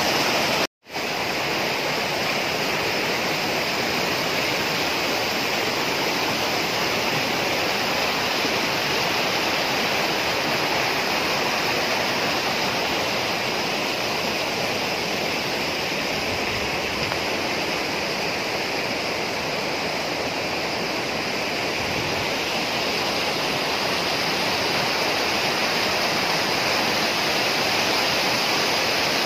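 Rushing water of a rocky mountain stream, a steady roar of cascading white water, cutting out for a moment just under a second in.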